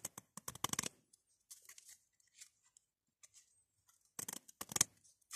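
Scissors snipping at card and tape. The crisp clicks and crinkles come in two bursts about four seconds apart, with faint handling ticks between.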